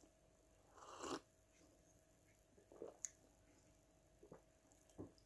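Faint eating sounds, mostly near silence: a sip from a mug about a second in, then a few soft chewing and mouth noises.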